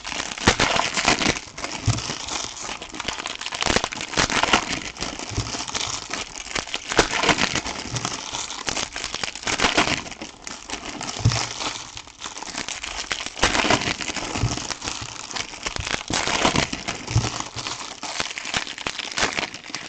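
Foil trading card pack wrappers crinkling and tearing as packs are opened and handled, in irregular rustles and crackles.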